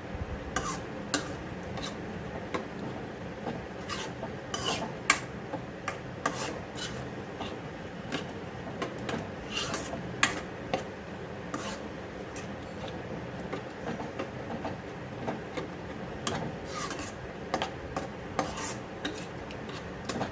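A spatula scraping and stirring in a kadhai as grated ginger is roasted in ghee: irregular scrapes and light clinks over a steady low background hum.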